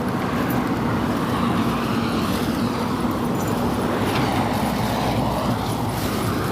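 Steady road traffic noise from a motor vehicle close by, with a low engine hum that fades out about two and a half seconds in.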